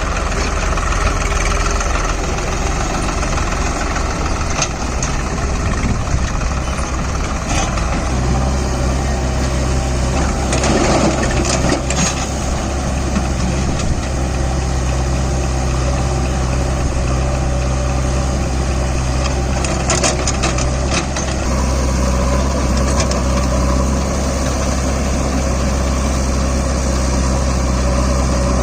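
Diesel engines of a Swaraj 735 FE tractor and a JCB backhoe loader running steadily, with a few brief clattering noises about a third and two-thirds of the way in.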